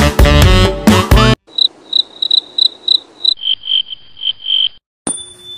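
Music cuts off about a second in, followed by insect chirping: short high chirps at about four a second in two runs, the second a little lower, then a steady high trill near the end.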